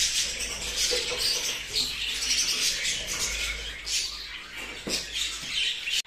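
A flock of budgerigars chattering and chirping at once, many overlapping calls with no let-up.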